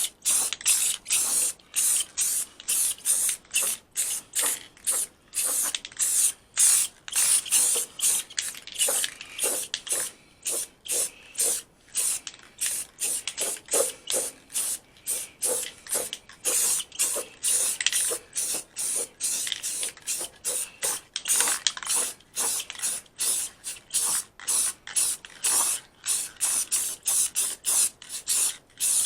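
Paint being sprayed in quick short hissing bursts, two or three a second, as a part is coated.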